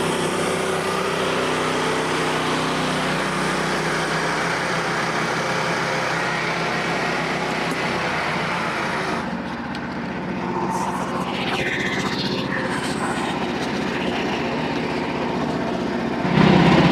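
Frontier band sawmill's 13.5 hp gas engine running steadily, getting louder near the end.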